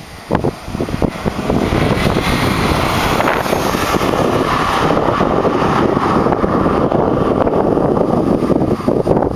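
BMW sedan driving past at speed, its engine and tyre noise mixed with heavy wind buffeting on the microphone.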